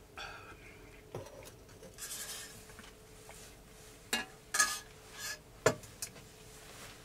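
A metal mug set down on a wooden table with a knock about a second in, then a metal spoon scraping and clinking in a metal camp pot while eating, with several sharp clinks in the second half.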